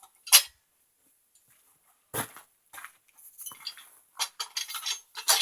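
Metal parts of a saw stand clanking as they are fitted together: a sharp clank about a third of a second in, two more a couple of seconds later, then a run of quick clinks and rattles near the end.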